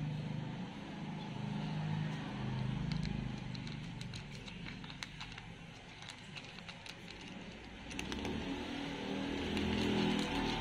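A cat crunching dry kibble from a plastic dish: many short sharp clicks, thickest in the second half, over a low engine rumble that swells near the end.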